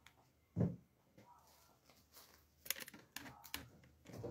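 Handling noise: a single low thump about half a second in, then a quick cluster of light clicks and rustles around three seconds in.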